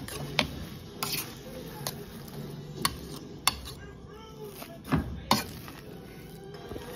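Metal potato masher mashing kumala (sweet potato) in a stainless steel saucepan, with a string of irregular sharp knocks as the masher strikes the pot.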